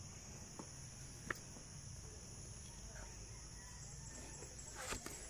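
Steady high-pitched drone of insects, with a few soft, irregular footsteps on concrete steps.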